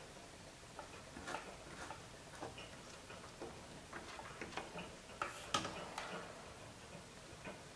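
Scattered light clicks and taps from the tip of a corded plastic welding iron working against the plastic mounting tab of a car headlight housing as it melts the plastic, with the loudest tap about five and a half seconds in.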